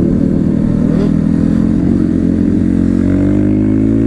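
Motorcycle engine running steadily while riding, with its pitch climbing slowly in the second half as it speeds up a little.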